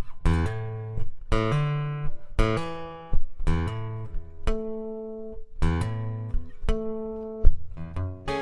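Guitar playing the opening of a song: a series of plucked and strummed chords, one every half second to a second, each left ringing.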